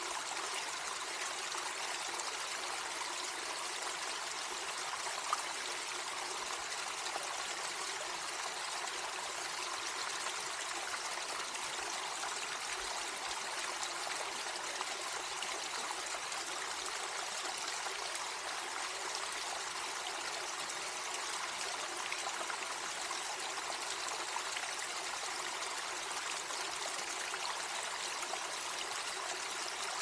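Small waterfall running steadily over rock ledges among snow and ice, an even splashing and trickling hiss of falling water that does not change.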